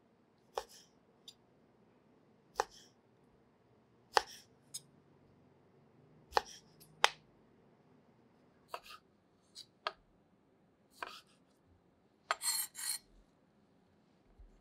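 Chef's knife slicing through grapefruit segments onto a wooden cutting board: short, sharp knocks as the blade meets the board, about every one to two seconds. Near the end come a pair of longer, rougher strokes.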